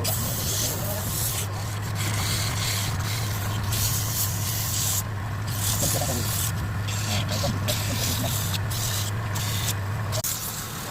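Power tool sanding wood: a steady motor hum with uneven rubbing noise that comes and goes over it, the motor stopping shortly before the end.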